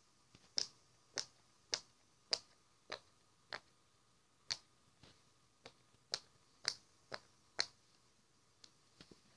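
Silicone pop-it fidget toy's bubbles being pushed in one at a time by finger, each giving a short, sharp pop. About a dozen pops come at roughly one every half second, with a brief pause about four seconds in and a few fainter pops near the end.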